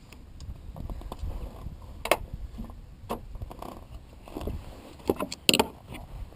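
Sharp metallic clicks and knocks from handling: one about two seconds in, another a second later, and a louder cluster near the end, over a low rumble.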